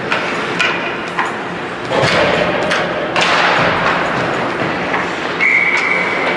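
Sharp thuds and knocks echoing in a large hall over steady crowd noise, with one steady high tone lasting about a second near the end.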